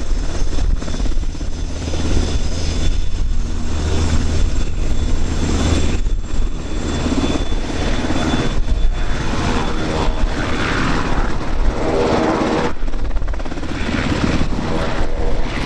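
F-15 fighter's twin jet engines running steadily, a high turbine whine over a broad rumbling roar.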